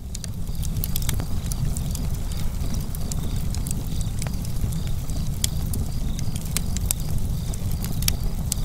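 Wood fire burning and crackling: a steady low rumble of flames with frequent sharp pops and snaps, fading in over the first second.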